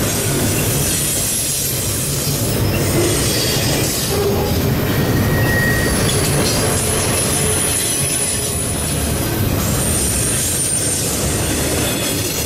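Double-stack intermodal freight train passing at close range: the steady rumble and rattle of loaded container well cars rolling over the rails, with faint high-pitched wheel squeals now and then.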